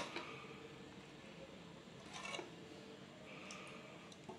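Stainless steel ladle scraping and clinking against a steel vessel while scooping thick rice payasam: a sharp clink at the start, a short scrape a little past two seconds in, and a fainter one later.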